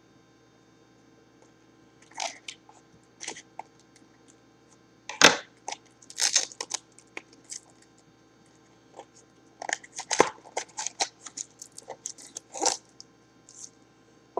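Cardboard trading-card mini boxes being torn and pried open by hand: scattered crunching and tearing, with a sharp crack about five seconds in and a run of short crackles in the last few seconds.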